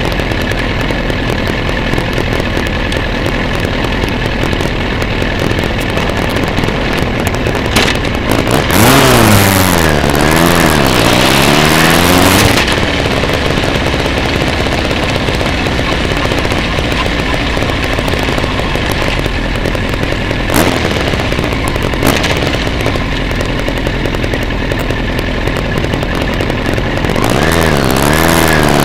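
Motorcycle engine running steadily, then pulling away harder about nine seconds in, its revs climbing and dropping several times through the gears before settling back to steady running. Near the end it accelerates through the gears again.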